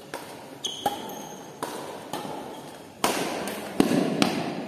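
Badminton racket strikes on a shuttlecock and sneakers squeaking and scuffing on the court floor during a doubles rally, a string of sharp irregular hits with short squeaks, echoing in a large gym hall; the hits come thicker in the last second and a half as the rally ends with the shuttle on the floor.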